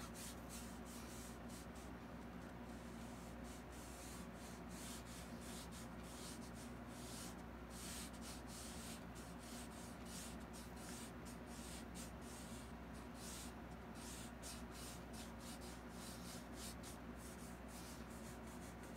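Fine paintbrush stroked lightly across a canvas, giving many faint, short scratches over a steady low hum.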